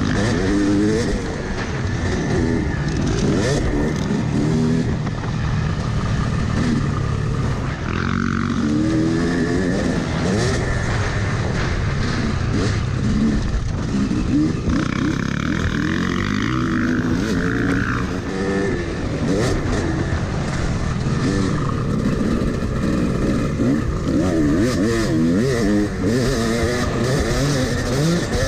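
Yamaha 250 two-stroke dirt bike engine under hard riding, heard from on the bike, its pitch repeatedly climbing and dropping back as the rider revs through the gears.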